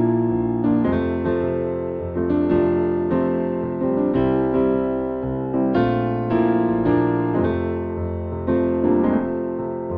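Background music played on an electric piano: a steady run of sustained chords and notes, a new note struck about every half second to second.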